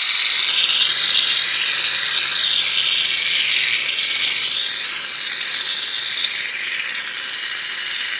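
Aerosol can of shaving cream spraying out foam in one continuous loud hiss that eases slightly toward the end.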